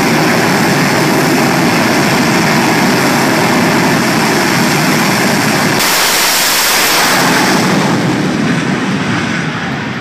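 Jet dragster's jet engine running loud and steady at the start line. About six seconds in the afterburner lights and the sound turns suddenly sharper and brighter; over the last two seconds it fades as the car leaves.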